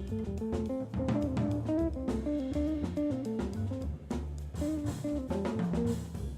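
Jazz group playing: a guitar picks a quick single-note melody over a moving bass line and a drum kit.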